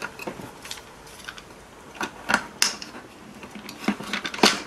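Plastic casing of a 12 V Black & Decker drill battery pack being fitted back together by hand: scattered light plastic clicks and knocks with some rubbing, the sharpest knock near the end.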